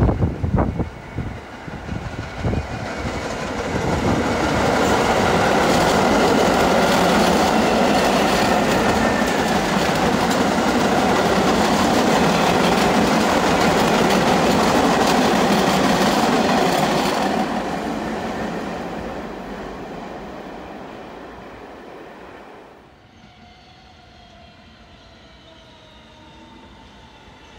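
R68 subway train passing through the station at speed, its wheels clattering over the rail joints; the noise swells in, holds loud for about fourteen seconds and then fades away. A short loud gust of wind hits the microphone at the very start.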